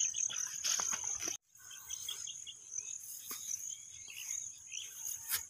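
Insects trilling in a steady, high, continuous tone over the open field, with scattered faint chirps and a few light clicks. The sound drops out for a moment about a second and a half in.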